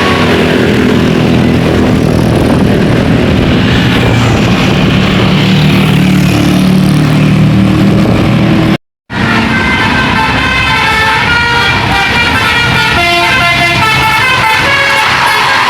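A tour bus passes with its diesel engine running, growing louder. After a sudden cut, a telolet horn (a bank of multi-tone air horns) plays a quick tune of changing notes.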